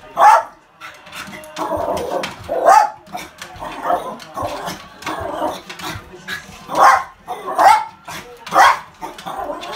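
A pet dog barking excitedly in short, sharp barks, one after another at irregular gaps of about a second, with a quick cluster of the loudest barks near the end.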